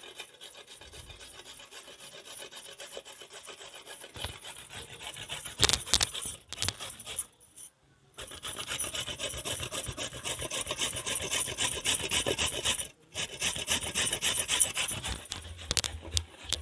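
Carrot being grated by hand on a round stainless-steel grater plate, stroke after stroke, with two short pauses, about halfway through and again about three-quarters through.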